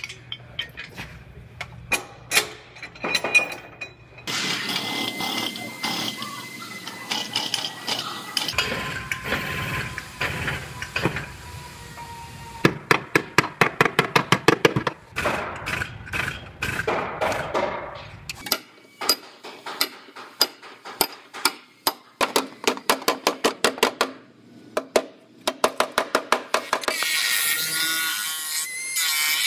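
Runs of hammer blows on car sheet metal, struck with a hammer and chisel in quick series as the crushed wheelhouse is knocked back into shape. Near the end a small cutoff wheel whines as it cuts through the quarter panel, throwing sparks.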